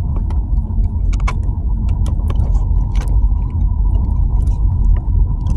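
Steady low road rumble heard inside a moving car's cabin, with scattered light clicks and rattles.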